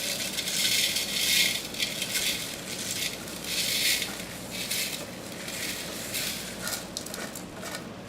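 Dry-roasted whole spice seeds and broken cinnamon stick being poured into a food processor bowl, rattling in uneven surges.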